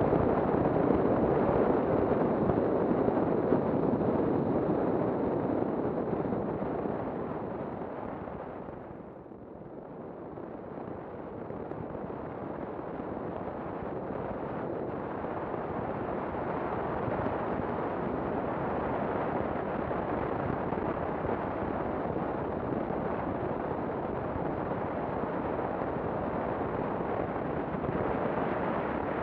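Wind buffeting the microphone along with engine and road noise from a touring motorcycle under way. The rush dies down about nine seconds in, then builds again and holds steady.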